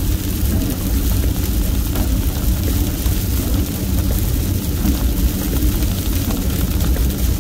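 Steady low rumble of a car driving on a wet highway, heard from inside the cabin, with an even hiss of rain and tyre spray over it.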